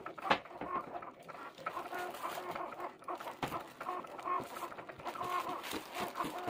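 Cricut cutting machine drawing with a pen: its motors run in short, steady tones that stop, start and change pitch from stroke to stroke, with light clicks among them.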